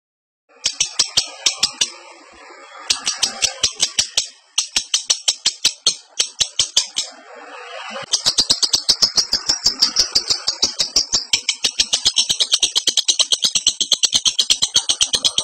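Lovebird in breeding condition chattering: a rapid series of sharp, high chirps, about seven or eight a second. It comes in short bouts separated by brief pauses, then runs without a break from about halfway.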